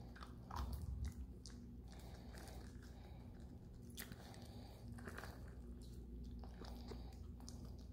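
Puppy crunching dry kibble that has dropped out of a treat-dispensing puzzle ball, a few faint scattered crunches.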